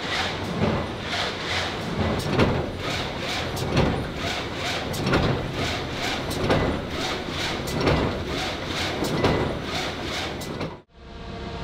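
Factory machinery running with a regular rhythmic swish, about one and a half strokes a second. Near the end it cuts off suddenly and a steadier machine hum takes over.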